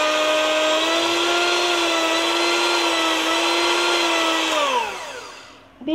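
Philips 300-watt electric hand mixer running with its wire beaters spinning freely in the air: a steady motor whine that steps slightly higher in pitch about a second in. Near the end it winds down, falling in pitch and fading as it is switched off.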